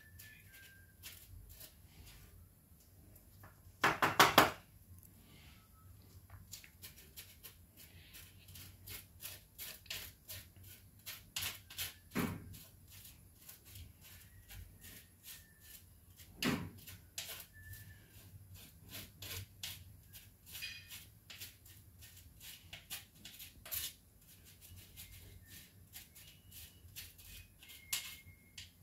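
Wooden spoon tapping and scraping inside a mesh sieve as icing sugar is sifted: many light clicks throughout, with a louder double knock about four seconds in and single knocks around twelve and sixteen seconds.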